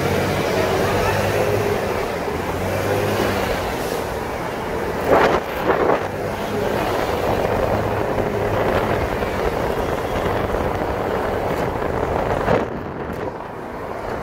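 Wind rushing over the microphone, with engine and road noise from a motorbike riding through city traffic. A brief louder burst comes about five seconds in.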